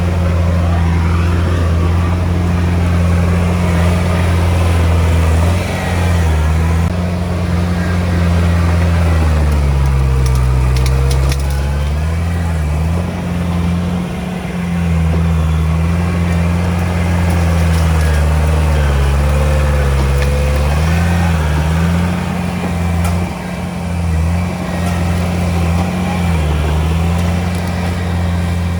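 Komatsu D31P bulldozer's diesel engine running steadily under load while pushing stone. Its pitch sags twice as it lugs, with a few sharp clanks near the dips.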